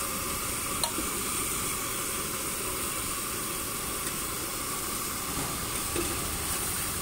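Chopped onions and tomatoes sizzling steadily on a large flat griddle, with one sharp tap about a second in.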